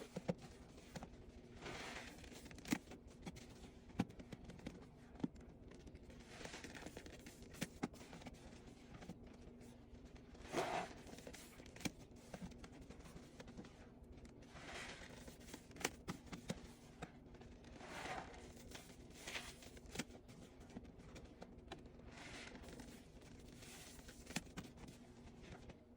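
Soapy sponge being squeezed and worked by hand, giving a soft crackling squish every second or two, with a few sharp clicks. A faint steady hum lies under it.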